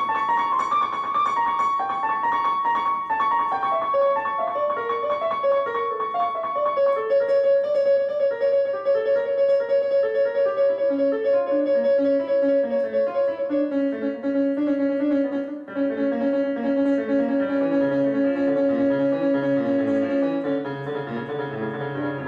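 Slow piano music: single notes step downward in a gentle melodic line over long held tones.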